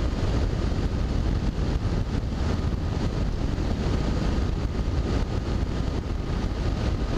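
Steady wind rush on the microphone and running noise from a Yamaha FZ6S sport motorcycle cruising at road speed.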